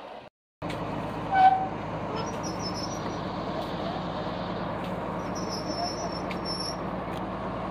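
Diesel engine of a mobile crane running steadily with a low hum. A single short, loud, high-pitched toot sounds about a second and a half in.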